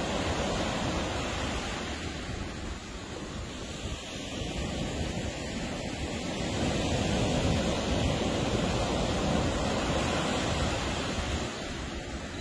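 Ocean surf washing onto a beach: a steady rush of breaking waves that swells louder about halfway through and eases off near the end.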